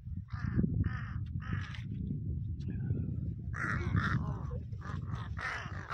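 Crows cawing as they flock to food on the ground: three separate caws in the first two seconds, then several crows calling over one another from a little past halfway, over a steady low rumble.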